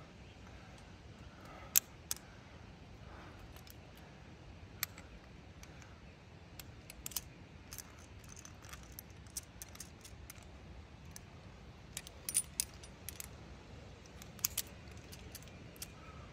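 Metal climbing gear clinking: carabiners and quickdraws tapping together in scattered sharp clicks, with quick clusters of clinks around twelve and fourteen seconds in.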